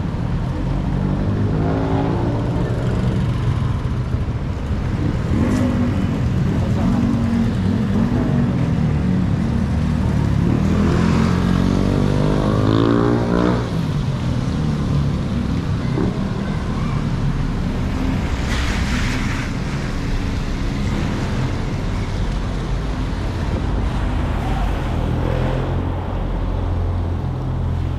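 Street traffic: motor vehicle engines running and passing close by, with one engine note rising around the middle and a brief hiss of a passing vehicle later on.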